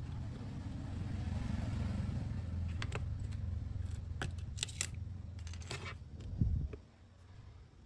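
Scattered small metallic clicks and taps of steel tweezers and a stripped phone frame being handled, over a steady low rumble; a soft thump near the end as the frame is lifted, after which the rumble falls away.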